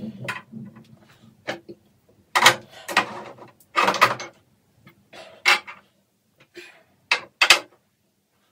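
Bottles and jars being set down and shuffled on bathroom cabinet shelves: a run of irregular knocks and clatters, loudest around the middle.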